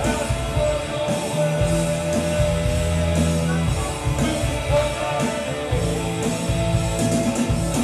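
Live rock band playing: a singer over electric guitars, bass, keyboard and drums, with a strong bass line that holds one low note for about two seconds near the middle.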